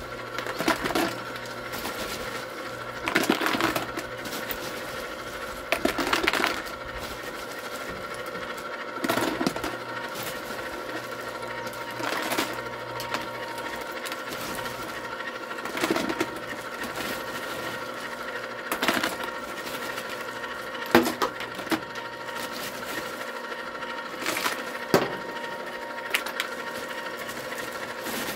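An electric ice cream maker's motor runs with a steady whine. Handfuls of ice are dropped into the bucket around the canister about every three seconds, the cubes clattering and the plastic ice bag crinkling.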